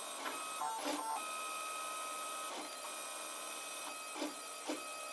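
Protomaker Black Sprint 3D printer's stepper motors running mid-print as the carriage and bed move, a steady whine that changes pitch from one move to the next, with a few short quick moves near the end.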